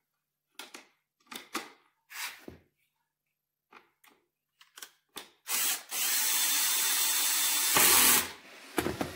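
Cordless drill-driver running for about three seconds, driving a bolt through a plastic pendulum rod into the crib's pendulum part, louder for a moment just before it stops. Before it, a few light clicks and taps as the bushing, washer and bolt are fitted by hand.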